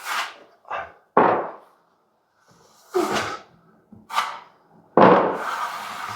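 Steel plastering trowel scraping and knocking as pre-mix filler is loaded and spread on a ceiling patch: a series of about six separate scrapes, the loudest coming about a second in and about five seconds in.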